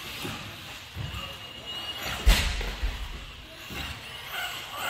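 Schumacher Cougar LD2 electric 1/10 buggy running laps on an indoor carpet track, with a sharp thump about two seconds in and smaller knocks around it.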